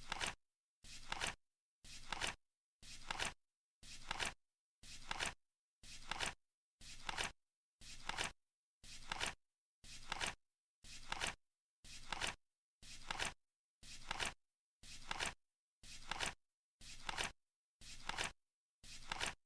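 Flip clock sound effect: a card flipping over once a second in an even rhythm, each flip a brief rustle that builds to a sharp click at its end, with silence between flips.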